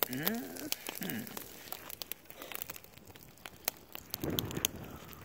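Wood campfire crackling with scattered sharp pops, while butter melts in a pot over it. In the first second a voice makes short sounds that glide up and down, and about four seconds in there is a brief rustle.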